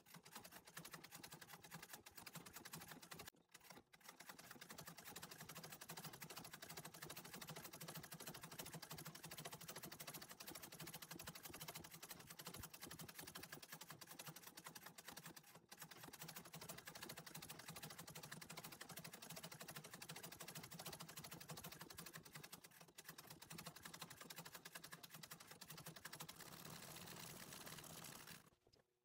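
Antique treadle sewing machine running steadily, a fast unbroken stream of needle strokes as it stitches embroidery fill. It pauses briefly about three and a half seconds in and stops just before the end. Faint.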